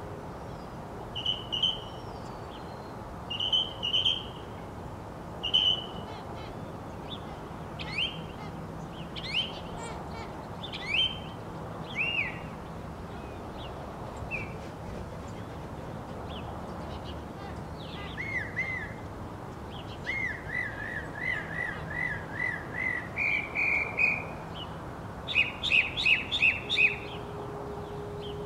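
Northern mockingbird singing: a string of varied whistled phrases, several of them repeated note after note, with quick runs of notes in the second half.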